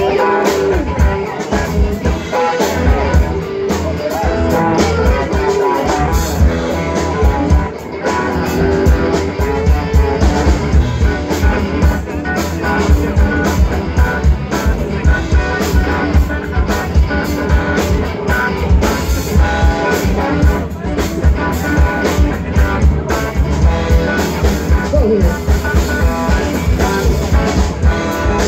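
Live blues band playing: electric guitars over a drum kit keeping a steady beat.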